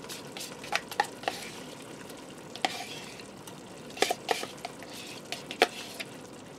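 A spoon scraping and knocking inside a plastic sour cream container as the sour cream is scooped out into the pot: a scattering of short, sharp clicks and taps at irregular intervals, over a faint steady sizzle from the pot.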